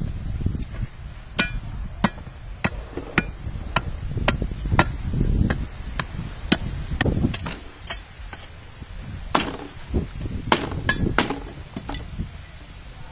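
A steel hoe blade chopping repeatedly into dry, crumbly soil: a run of sharp, irregular blows, several with a brief metallic clink.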